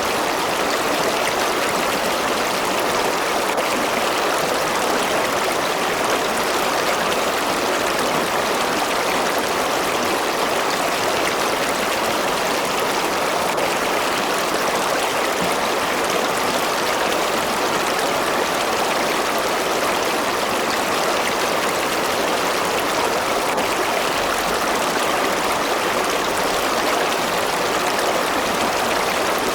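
River water rushing and babbling over rocks, a steady, even flow.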